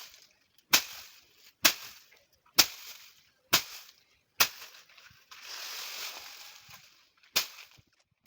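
Sharp strikes repeating about once a second, each fading quickly, with a rustling, scraping noise for a second or two between them partway through.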